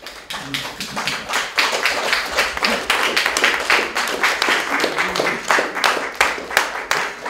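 Audience applauding, many hand claps at an even level throughout.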